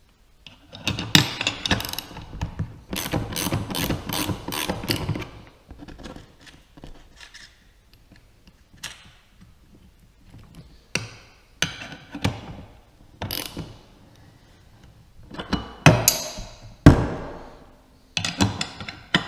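Steel wrenches working a nut and bolt on an aluminium davit mounting block: a quick run of metallic clicks and clinks, then scattered single clicks and knocks, with two louder knocks near the end.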